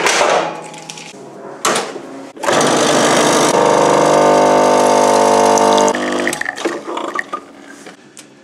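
Single-serve espresso machine's pump buzzing steadily for about three and a half seconds while espresso pours into a cup, cutting off abruptly. A few short knocks come before it as the machine is loaded and closed.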